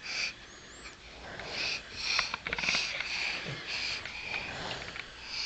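A young child making a string of short, breathy sniffs and snorts through the nose, several puffs in a few seconds with a few small clicks between them.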